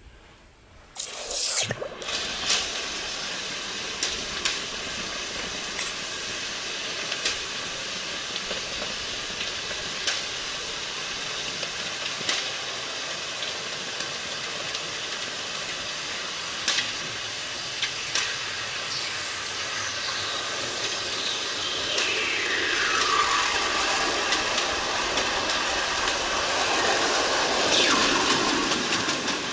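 A hot copper ingot plunged into a bucket of water with a sudden splash, then a steady boiling hiss with scattered sharp pops as the metal cools. Near the end, tones slide down in pitch, the sound effects of the cooling metal.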